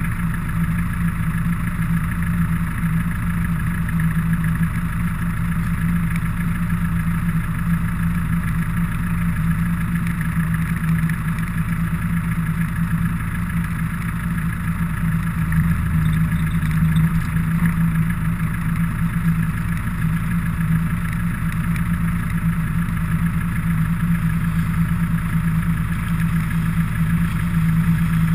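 A car engine idling, a steady unbroken hum.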